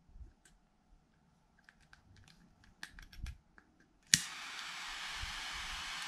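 LEXIVON LX-770 butane soldering iron: small plastic clicks from its switch and lock slider, then its piezo igniter snaps about four seconds in and the lit torch hisses steadily.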